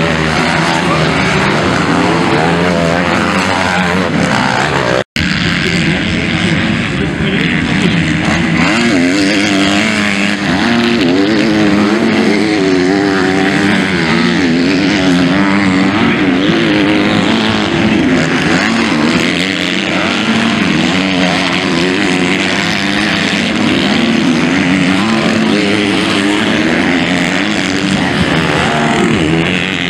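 MX2-class motocross bike engines revving hard, their pitch rising and falling with each gear change and throttle blip. The sound cuts out for an instant about five seconds in.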